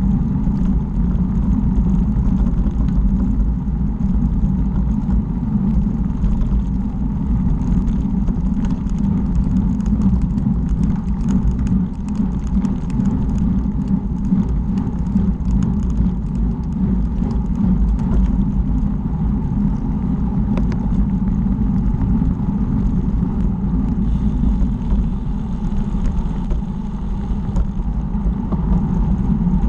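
Wind buffeting the microphone of a bicycle-mounted camera while riding, a steady low rumble with faint scattered clicks from the ride.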